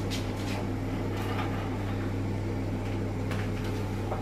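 A steady low electrical hum from a running kitchen appliance, with a few faint clicks and taps over it.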